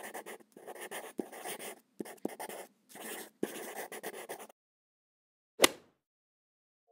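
Pen scribbling on paper in a run of quick strokes, stopping about four and a half seconds in, followed about a second later by a single sharp click.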